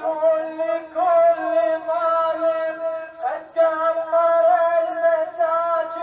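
A single voice singing a slow chant in long held notes, with brief breaks about a second in and again just after three seconds.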